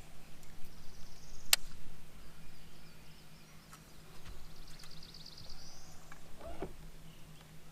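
Quiet swamp ambience with a faint, high, trilling animal call that rises in pitch near the middle. A single sharp click comes about a second and a half in, over a steady low hum.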